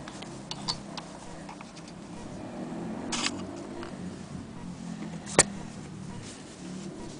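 Small metallic clicks and a brief scrape as the antique Victorian sewing machine's metal slide plates are handled, with one sharp click about five seconds in. A steady low hum runs underneath.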